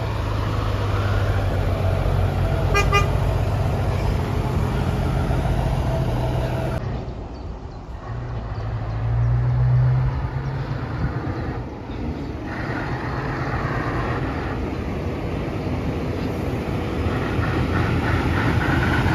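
Heavy truck diesel engines running as tractor units drive past, with a brief horn toot about three seconds in.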